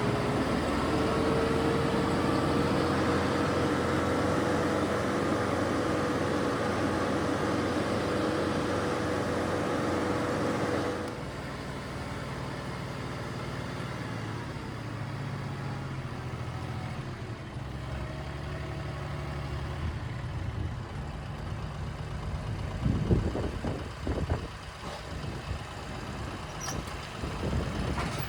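A motor vehicle engine running, with a steady whine that rises slightly in pitch. About eleven seconds in, the sound drops abruptly and changes to a quieter, lower engine hum. A few knocks follow near the end.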